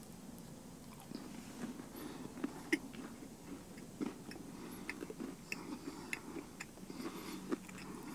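A person biting into and chewing a glazed McDonald's cookies and cream pie: quiet, irregular wet mouth clicks and smacks.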